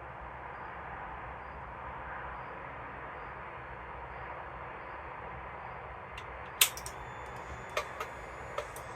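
Steady background hiss, then a series of about six sharp clicks in the last three seconds, the loudest about two-thirds of the way in.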